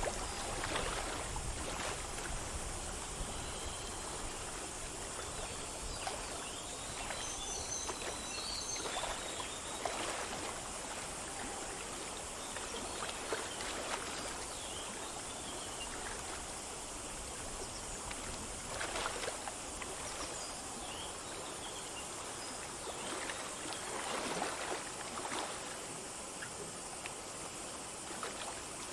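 Small forest stream flowing over stones, a steady rush with frequent little splashes and gurgles. A few faint bird chirps come in now and then.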